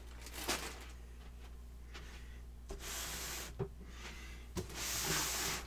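Packaging being handled: two brief rubbing, sliding rustles, the second a little longer, with a few light knocks between them.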